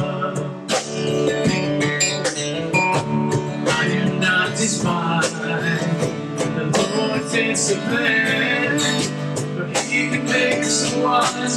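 Acoustic guitar strummed steadily, with a cajon keeping the beat, under men singing a slow worship song.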